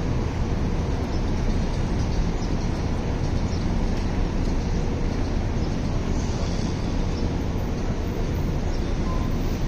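Steady low rumble of city background noise, unchanging, with no distinct events.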